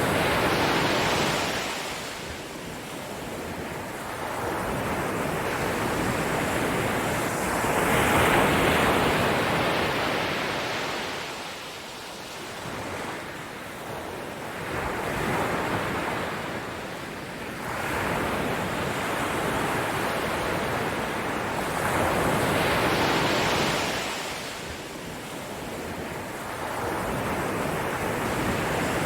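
Ocean surf: waves breaking and washing in, the noise swelling and fading every several seconds.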